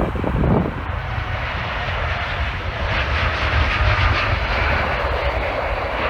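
Airliner's engines passing, the noise building from about a second in to its loudest around three to four seconds, with wind rumbling on the microphone.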